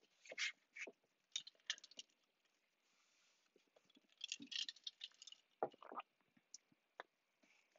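Faint sips and swallows of water from a drinking glass, with a few light clicks and knocks before and after.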